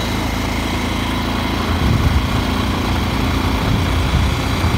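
Motorcycle engine running at road speed, with wind noise over the microphone. The low rumble swells from about two seconds in.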